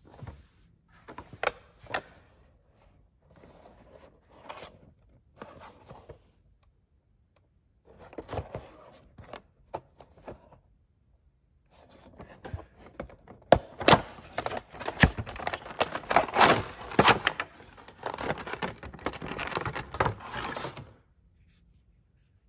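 A boxed vinyl toy figure being handled and unpacked: scattered taps and light scrapes on cardboard, then, from about halfway in, a louder, denser stretch of packaging rustling and crinkling that stops about a second before the end.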